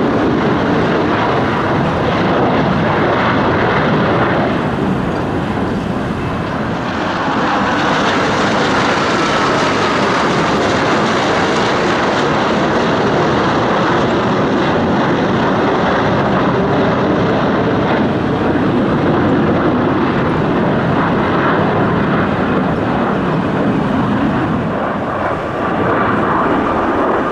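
Two Sukhoi Su-30MK2 fighters' twin AL-31F turbofan jet engines running loud as the jets fly past in formation, a steady dense roar of jet noise. About eight seconds in, a high whine in the roar falls in pitch.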